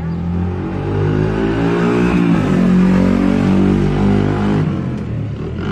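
A motor vehicle passing close by, its engine growing louder to a peak about three seconds in and then fading away.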